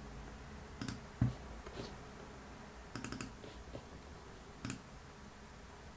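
Faint, scattered clicks of a computer keyboard and mouse: a few single clicks, then a quick run of three or four about three seconds in, over quiet room tone.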